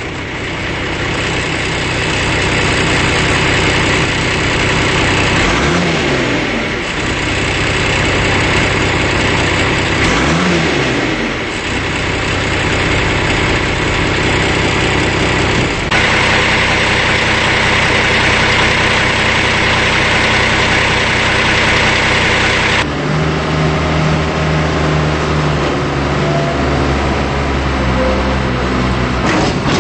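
John Deere 710C backhoe loader's turbo diesel engine running, loud and steady. Its pitch dips and recovers twice early on, and a louder high-pitched whine sits over it for several seconds in the middle.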